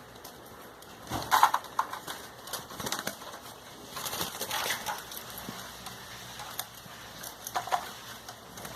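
Seized wild birds in cages giving short calls, amid irregular rustling and knocking, loudest about a second in.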